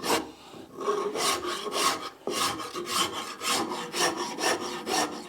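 Shinto rasp filing a wooden workpiece by hand in quick rhythmic strokes, about five or six a second, in a few runs broken by short pauses.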